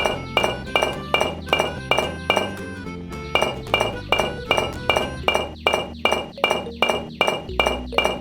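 Background music with a steady beat of bright, clinking percussion, about three strikes a second over held low notes, easing briefly about three seconds in.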